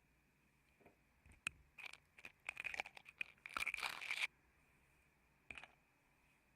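Matches and a matchbox being handled up close: a run of dry scratches and crinkling rustles, the longest and loudest scratchy burst lasting under a second, about three and a half seconds in.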